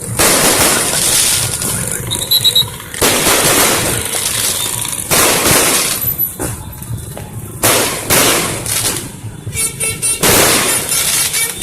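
Fireworks going off in a series of loud bursts, each fading away over a second or so, with high whistling between them.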